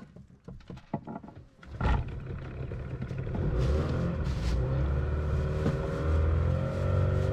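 Yamaha outboard motor starts with a sudden burst about two seconds in, then runs steadily and picks up speed, its pitch rising slowly as the boat gets under way.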